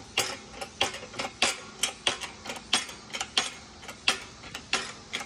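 Hydraulic shop press working to push a worn brass bushing out of a cast-iron pitman bearing block: a run of sharp clicks, about three a second.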